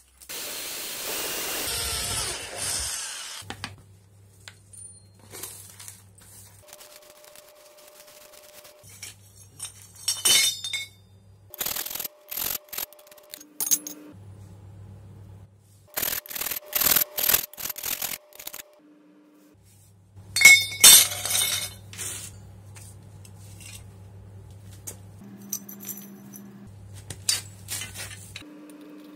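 Short lengths of steel square tubing clinking and knocking as they are handled and set down on a concrete floor, in scattered clusters of sharp metallic taps. The first three seconds hold a steady burst of noise.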